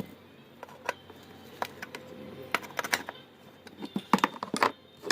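Scattered light clicks and taps of a small hand tool working screws on a metal meter case, with a closer cluster of clicks near the end.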